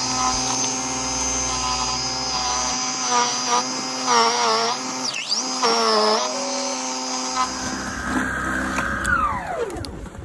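Snow Joe iON13SS cordless snow shovel's 40-volt brushless motor and auger running with a steady high whine. Its pitch dips several times in the middle as the auger bites into snow. About nine seconds in it spins down with a falling whine.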